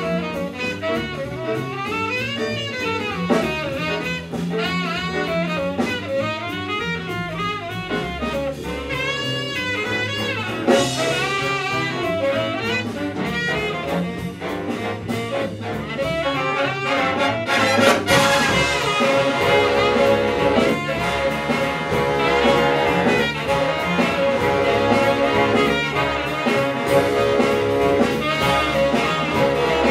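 Live big-band jazz: a saxophone solo over bass and rhythm section. Brass backing comes in behind it, and about halfway through the sound thickens into the full band playing together.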